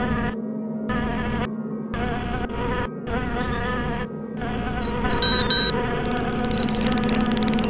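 A swarm of bees buzzing, a steady droning hum that surges in and out. About five seconds in come two short high beeps, followed near the end by a fast run of clicks.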